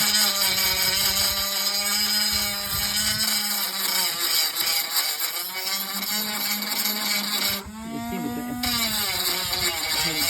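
Power drill motor running under load, with a steady whining hum and hiss, pausing briefly about eight seconds in before running again.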